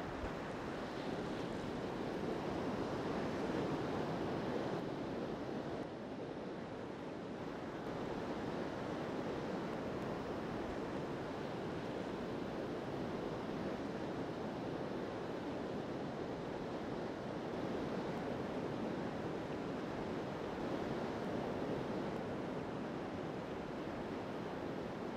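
Ocean surf: waves breaking and washing onto the shore in a steady, unbroken rush.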